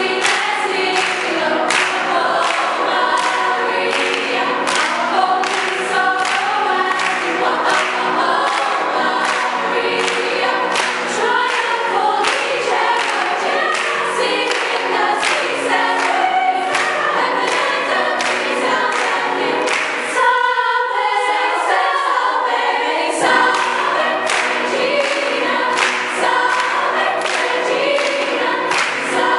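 Large girls' choir singing an upbeat gospel-style hymn, with steady handclaps on the beat. About two-thirds of the way through, the lower voices drop out for a few seconds, then the full choir comes back in.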